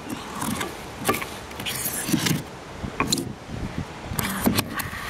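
Close handling noise: irregular rubbing and scraping with a few sharp clicks.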